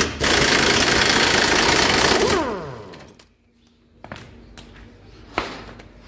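Impact wrench with a 30 mm socket hammering the rear wheel hub's axle nut loose for about two seconds, then spinning down with a falling whine. A few light metal clicks follow.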